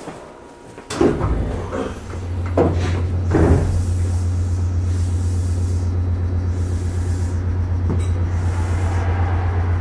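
Aboard a Meitetsu 3500 series electric train: a sharp knock about a second in, a few more knocks, then a steady low hum from the train's equipment with patches of hiss.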